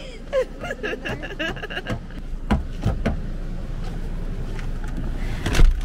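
Low rumble of a car, building after the first couple of seconds, with a few sharp knocks.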